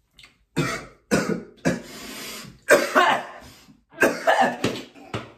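A man's coughing fit: a rapid string of harsh coughs starting about half a second in, brought on by a large lungful of vape vapour.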